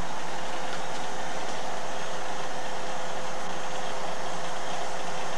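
A steady hiss with a faint constant hum in it, unchanging throughout.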